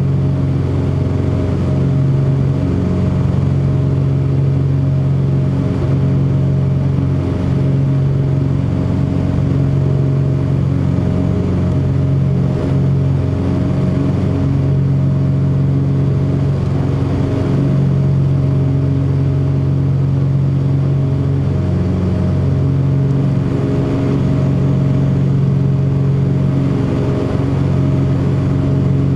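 Steady drone of the Cessna 404 Titan's two piston engines and propellers at a constant setting, the low tones slowly swelling and fading every few seconds.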